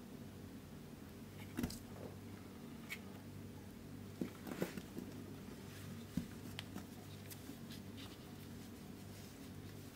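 Gloved hands squeezing kinetic sand and packing it into a plastic mould: soft crunches and rustles, with a few sharper clicks about two, four and a half and six seconds in, over a steady low hum.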